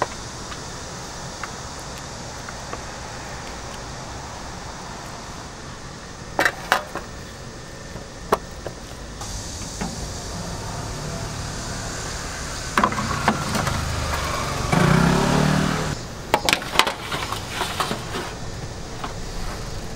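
Steady outdoor background noise with scattered sharp clinks of steel trays and wire racks as marinated pork ribs are handled. A louder rushing sound swells a little past the middle and stops suddenly about three-quarters of the way through.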